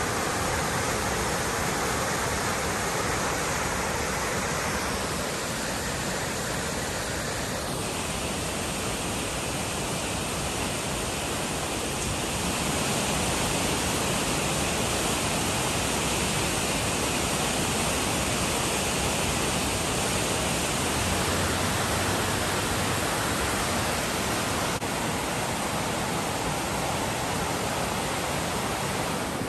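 Flash floodwater rushing: a steady, loud rush of water with no pauses, its tone shifting a few times.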